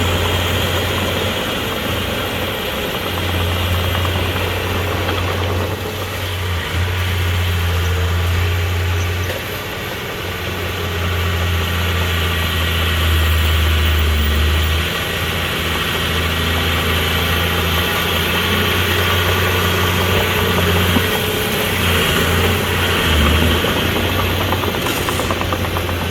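Bulldozer's diesel engine running under load with a deep, steady drone that dips and swells as it works.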